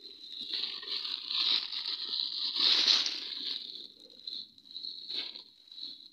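Plastic packaging being handled and crumpled: irregular rustling and crinkling, loudest about three seconds in, with a short sharp crackle about five seconds in, over a steady high whine.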